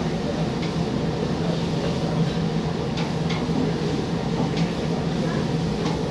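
Large round Mongolian barbecue griddle in use: a steady low rumble and hiss with food sizzling on the hot surface. A few sharp scrapes and clicks come irregularly as the cooks' long cooking sticks strike the griddle.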